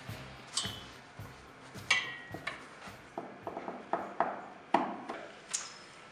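A scatter of sharp clicks and knocks, some with a brief metallic ring, with a quick run of them between about three and five seconds in.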